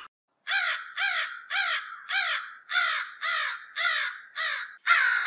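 Crow cawing: a steady series of about eight caws, roughly two a second, each falling in pitch, then a louder burst of calling near the end.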